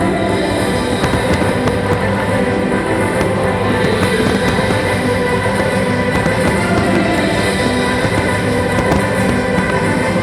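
Loud show music over a sound system, steady throughout, with a few faint firework pops under it.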